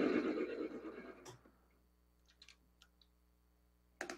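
Small import bench lathe running through a threading pass under power, then switched off and spinning down over about the first second. A few faint clicks follow, and one sharp click comes near the end.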